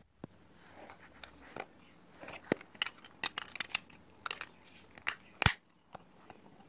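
Hands handling Lego pieces: a quick run of small plastic clicks and crinkling as a white window frame and a clear plastic panel are fitted together, with the loudest snap about five and a half seconds in.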